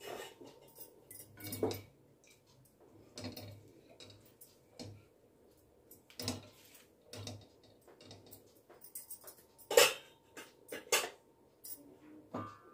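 Kitchen utensils and pots clinking and knocking on and off, with a louder knock about ten seconds in.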